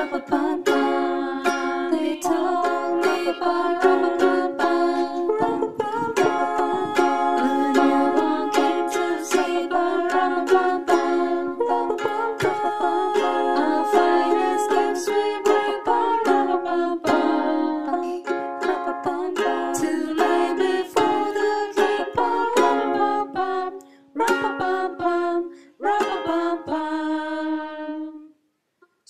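Ukulele strummed in a steady rhythm with voices singing a Christmas carol along with it. The music breaks off briefly twice near the end and stops for a moment just before the next phrase begins.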